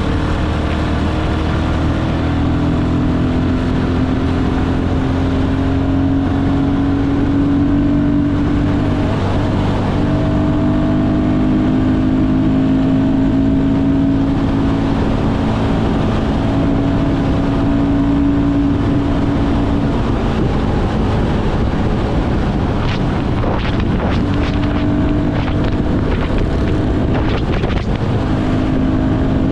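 Royal Enfield Guerrilla 450's single-cylinder engine running under way at cruising speed, its note slowly climbing as the bike gathers speed. About two-thirds of the way through the engine tone briefly drops out, as if off the throttle, then picks up again. Wind noise on the microphone.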